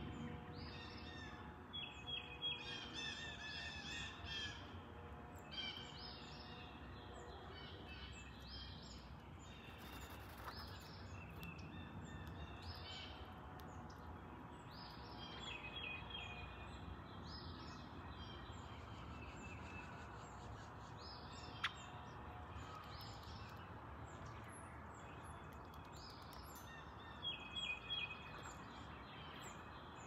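Wild birds calling outdoors: short chirping phrases repeat every few seconds over a steady low background rumble. A single sharp click sounds about two-thirds of the way through.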